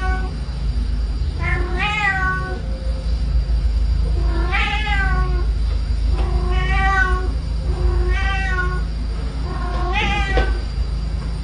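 A calico cat yowling with a toy held in its mouth: five drawn-out calls, each rising and falling in pitch, about every one and a half to two seconds.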